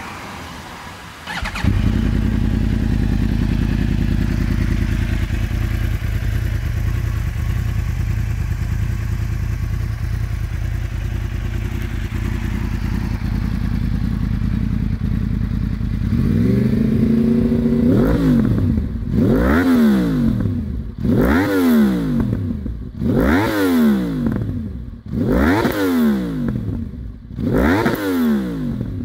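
Yamaha R1 inline-four engine starting about a second and a half in and idling steadily. In the last dozen seconds it is revved through an Akrapovic carbon silencer in about nine quick throttle blips, each rising and falling in pitch, about one a second.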